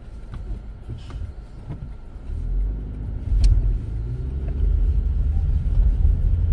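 Car engine and road rumble heard from inside a moving car, growing louder from about three seconds in as the car speeds up, with a single click around the same moment.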